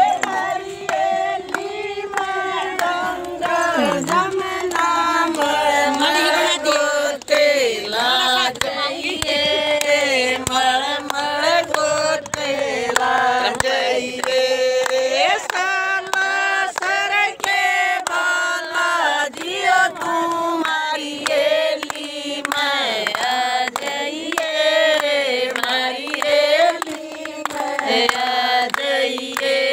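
A group of women singing a devotional bhajan together in unison, with steady hand-clapping keeping the beat.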